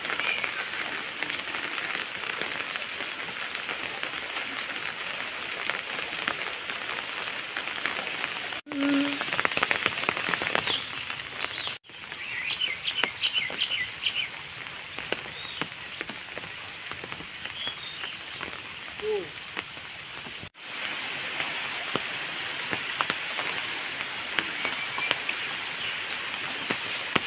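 Steady hiss of heavy rain falling on floodwater, with a few short bird chirps near the middle. The sound drops out briefly three times.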